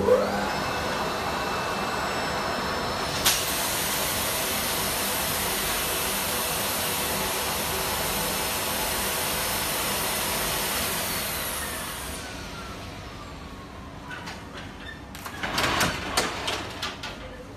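Vacuum pump of a vacuum skin-packaging machine starting suddenly and running with a steady rushing hiss as it pulls the plastic film down over the circuit boards, with a sharp click about three seconds in. About eleven seconds in it winds down with a falling whine, and near the end there are clicks and clatter as the film frame is handled.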